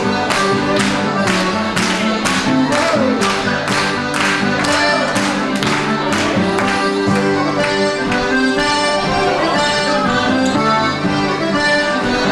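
Live Irish traditional dance music for a ceili, with an accordion playing the tune over a steady beat of about two strikes a second. The beat is strongest in the first half.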